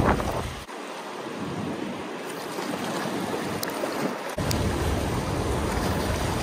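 Fast, choppy river water rushing along a rocky bank, a steady wash. Wind rumbles on the microphone, drops away about a second in, and returns a few seconds later.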